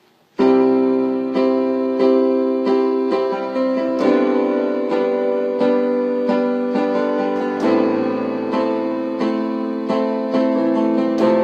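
Instrumental song intro led by piano or electric piano, playing sustained chords with a steady, even run of struck notes, about one to two a second; it starts suddenly about half a second in.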